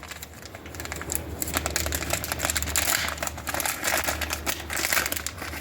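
Rapid small clicks and crinkling of hands handling rubber latch straps and their packaging.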